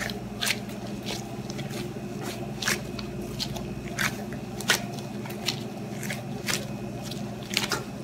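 Gloved hands kneading soft pandesal bread dough on a countertop: short squishes and scrapes about twice a second as the dough is pushed, folded and pressed.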